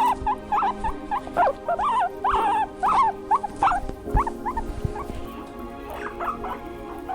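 A small animal's repeated short, high calls that bend in pitch, about two a second at first and thinning out near the end, over background music.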